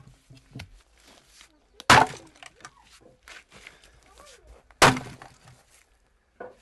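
Axe splitting firewood logs: two sharp chops about three seconds apart, each followed by the splintering crackle of the wood.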